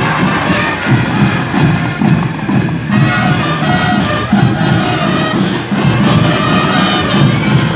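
Music with brass and percussion playing at a steady beat.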